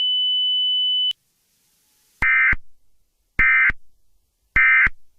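A steady high-pitched tone ends with a click about a second in. It is followed by three short, identical screeching digital data bursts about a second apart: the Emergency Alert System SAME end-of-message (EOM) tones that close an alert broadcast.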